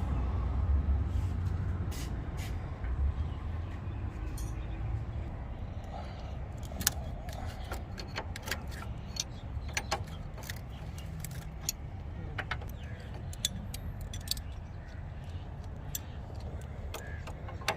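Scattered sharp metal clicks and clinks of a spanner and tools working on an air-conditioning pipe fitting, over a steady low rumble.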